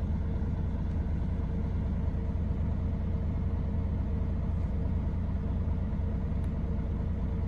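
Mercedes Actros truck's diesel engine idling, heard as a steady low rumble inside the cab.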